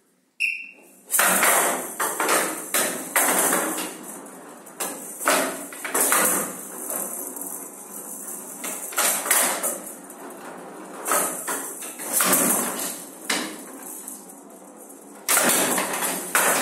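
Showdown rally: the rattling showdown ball, filled with small metal beads, rolls and rattles across the wooden table and is struck back and forth with sharp knocks against the players' bats and the table's side walls. After a near-quiet start, the rally gets going about a second in, with knocks every second or two.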